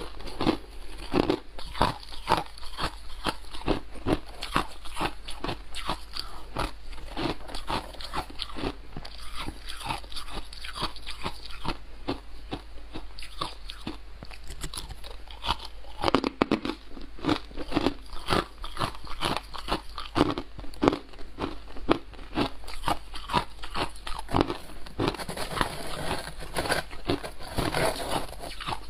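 Freezer frost ice being bitten and chewed close to a lapel mic: a dense, uneven run of crisp crunches, several a second.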